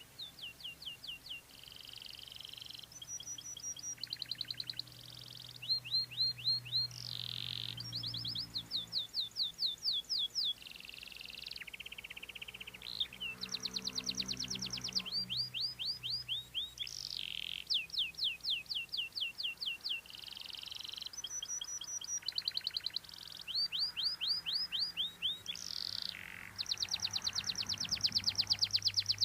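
Domestic canary singing a long, continuous song of rapid trills, each phrase of quickly repeated notes lasting about a second before switching to a different note.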